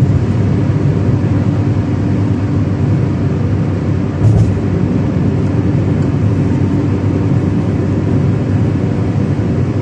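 Steady road and engine noise of a car cruising on a highway, heard from inside the cabin, with a short knock about four seconds in.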